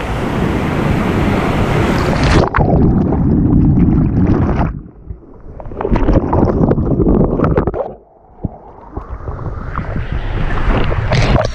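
Loud rushing and splashing of whitewater over a kayak-mounted action camera, with water washing across the microphone. The noise drops away sharply twice, about five and eight seconds in.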